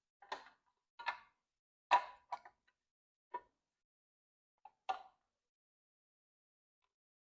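Scattered light clicks and taps of small parts and tools being handled, seven or so irregularly spaced over about five seconds.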